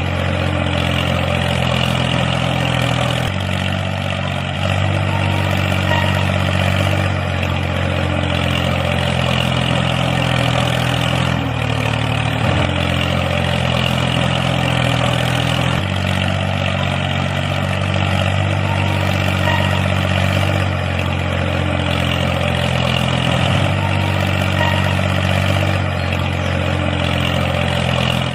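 Tractor engine running steadily, with small shifts in pitch every few seconds.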